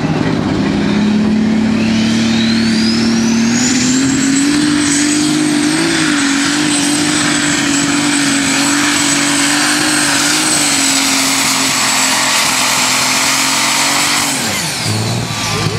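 Alcohol-burning super stock pulling tractor running at full throttle under load as it drags the sled, with a high turbocharger whine that climbs over the first few seconds and then holds steady. Near the end the engine note falls away sharply as the throttle is cut.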